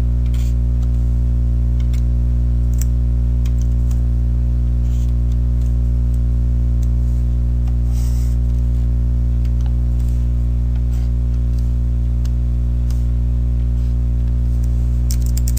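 Loud, steady low electrical hum on the recording, unchanging throughout, with faint scattered mouse clicks and a quick run of clicks near the end.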